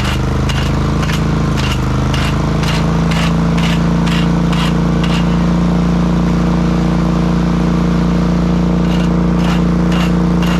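Heavy diesel construction equipment engine running steadily, its pitch dipping briefly near the start, then holding. A sharp beep or clack repeats about twice a second through the first half and again near the end.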